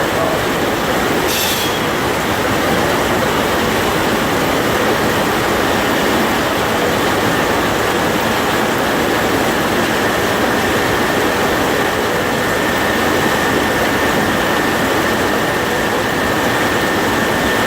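Steam-powered circular sawmill running, a steady noisy din with a faint high whine held through it.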